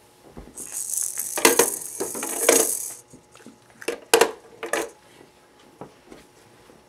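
Toy gumball machine rattling and jingling, its balls clattering inside for about two and a half seconds, then a few sharp plastic clacks.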